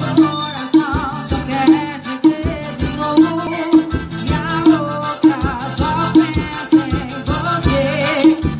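Music with a singing voice and a steady beat, Latin in style with shaker-like percussion, played through an LG XBoom party speaker.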